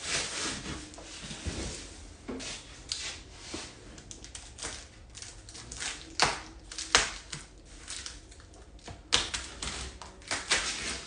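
A gift being unwrapped: wrapping paper and packaging rustling and tearing, with irregular sharp crackles and snaps, a few louder ones in the second half.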